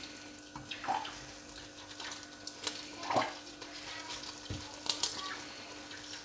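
Cooked fusilli being tipped from a steel strainer into a pan of white sauce, with soft wet slides of pasta and a few light knocks of a metal spatula against the metal, over a faint steady hum.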